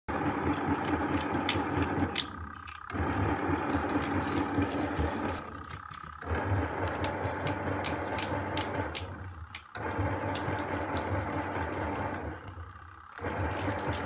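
Small bucket-type washing machine running, its motor humming and its pulsator stopping for a moment about every three and a half seconds before starting again. A rattling clatter runs through the wash, which comes from the lint filter.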